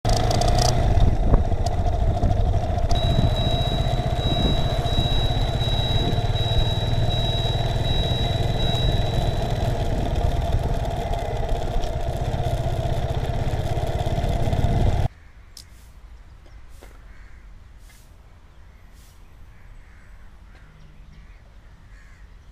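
Riding a motor scooter, heard from the rider: steady engine drone and wind rush, with a thin high whine for several seconds. About fifteen seconds in it cuts to a much quieter outdoor ambience with a few sharp clicks.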